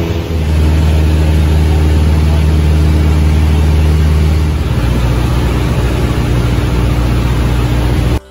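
Steady drone of a light airplane's engine and propeller, heard inside the cabin. Its low tone shifts about halfway through, and it cuts off abruptly near the end.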